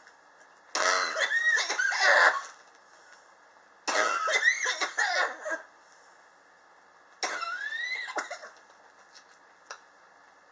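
A person coughing in three bouts about three seconds apart, each lasting one to one and a half seconds with a strained, wavering pitch through it. It is a chronic cough that has gone on for years.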